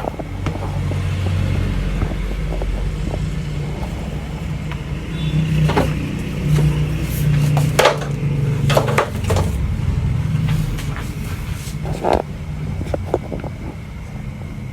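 Steady low rumble with about five sharp clicks and knocks in the second half.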